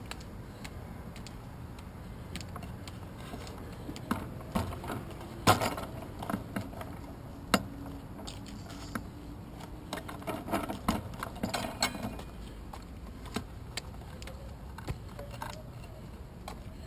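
Road bicycle being wheeled over stone steps and paving, rattling and clunking at irregular moments with sharp knocks as it bumps down the steps, over the ticking of its rear freewheel.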